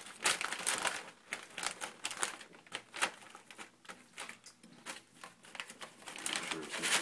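Plastic vacuum-seal bag crinkling and rustling as it is handled and smoothed into the channel of a countertop vacuum sealer, with scattered small clicks. The rustling comes in irregular bursts, louder in the first second and again near the end.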